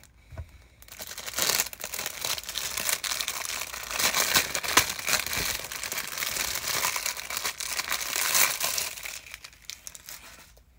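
A thin clear plastic bag crinkling and rustling as hands work a Pokémon trading-card blister pack out of it. It starts about a second in and fades out near the end.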